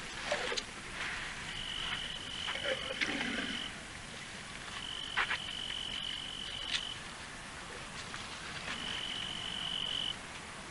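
A high, steady animal call, each held about two seconds, repeats three times through the night ambience. Over it come a few sharp knocks and a brief low snuffle as an African elephant's trunk sniffs and bumps against the camera.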